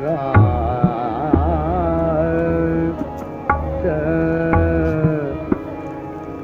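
Intro music in South Asian classical style, with tabla drum strokes under a sustained melody that wavers in pitch.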